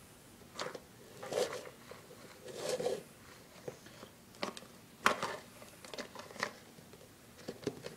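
A clear plastic container being slid and scraped across a hardwood floor by hand, with scattered clicks and knocks. There are two longer scrapes in the first three seconds.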